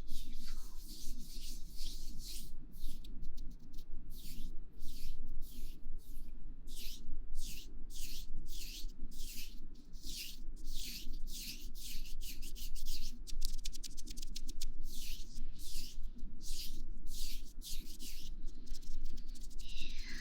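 ASMR friction sounds: rhythmic rubbing strokes close against the microphone, about two a second, quickening into faster, finer rubs around the middle.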